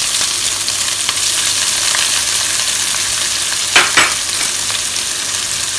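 Freshly added chopped ginger, green chillies and mustard seeds sizzling steadily in hot sesame oil in a nonstick wok during tempering, with two sharp knocks close together a little under four seconds in.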